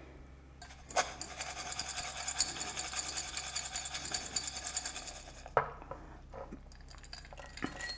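Dry, crunchy wai wai noodles with chopped onion and tomato being tossed in a stainless steel bowl: a fast, steady rattling scrape for about four seconds. Then a knock and a few light clinks.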